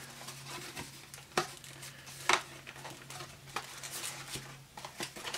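Cardboard booster box being opened by hand, its lid flap lifted and handled: a few sharp taps and rustles of cardboard over a low steady hum.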